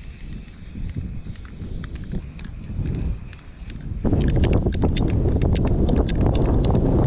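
Strong wind buffeting the microphone outdoors, a gusty rumble that gets much louder about four seconds in. Over it comes a fast, irregular run of sharp clicks.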